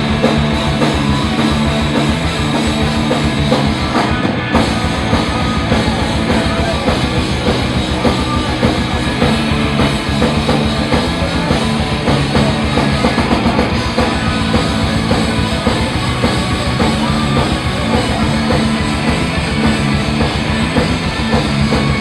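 Rock band playing live at full volume: a drum kit keeping a fast, dense beat under guitars.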